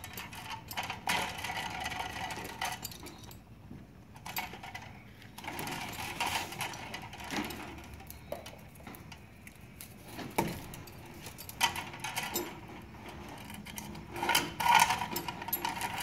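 Sheathed electrical cable being handled and worked into a metal switch box: irregular scraping and rustling with light metallic clicks of wire against the box, and one sharper click about ten seconds in.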